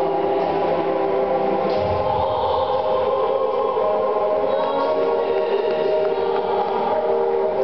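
Program music with a choir singing long held chords that change every second or two.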